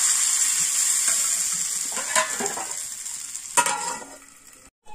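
Rice-flour ghavne batter sizzling on a hot iron pan over a wood fire, the sizzle slowly fading. Two short metallic knocks come about two and three and a half seconds in, as a steel plate lid is set over the pan.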